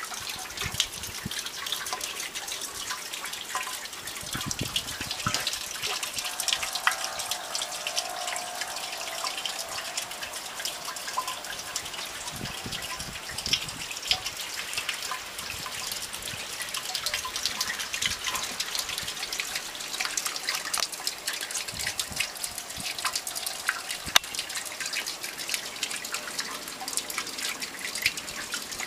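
Raindrops pattering and dripping: a dense, steady crackle of many small drops landing.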